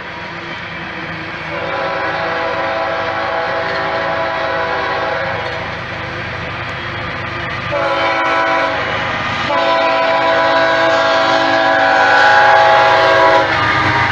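Multi-chime air horn of an approaching BNSF intermodal's lead diesel locomotive sounding the grade-crossing signal: a long blast, a short one, then a long one that grows louder as the locomotive nears. Under it, a passing empty coal train's hopper cars rumble and clack over the rails.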